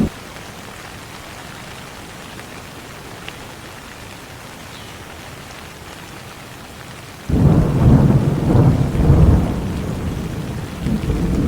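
Steady rain, with a loud rumble of thunder that starts suddenly about seven seconds in and rolls on for about four seconds.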